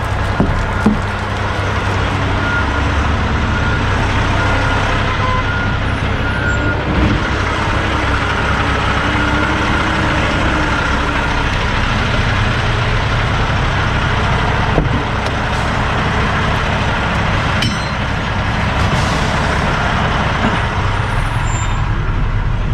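Semi-truck diesel engine idling with a steady low hum, under an even hiss that does not let up.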